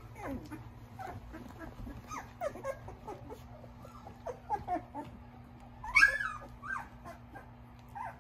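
Young Australian Shepherd puppies whimpering and squeaking in a string of short, wavering cries, with one louder, shriller yelp about six seconds in.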